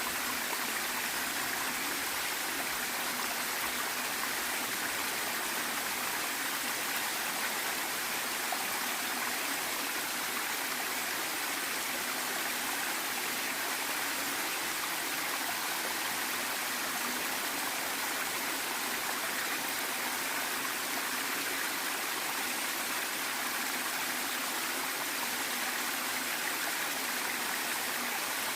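Waterfall and its stream: a steady, even rush of falling and running water, unbroken and unchanging throughout.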